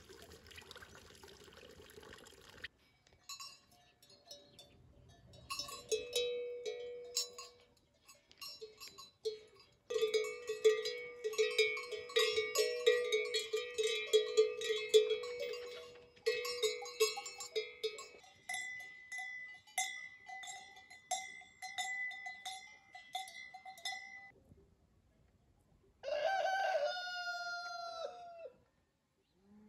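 Cowbells on grazing cattle ringing in irregular strikes for most of the stretch, after a brief trickle of water from a well spout at the start. Near the end a rooster crows once, its call falling in pitch at the close.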